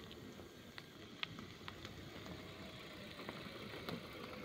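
An SUV rolling slowly over a dirt and gravel road: a quiet low rumble of engine and tyres, with scattered small clicks.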